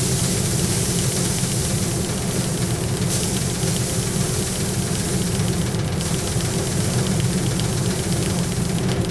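Paddy thresher running steadily with a dense low mechanical hum, while bundles of rice are pressed onto its spinning drum, adding a dry hiss of grain and straw that shifts in strength about three and six seconds in.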